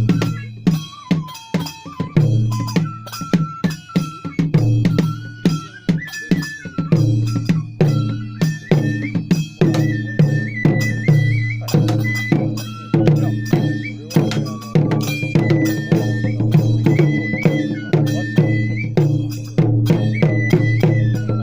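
Traditional Japanese festival music: drum strokes at a steady beat with clanking metal percussion under a high, stepping single-line melody.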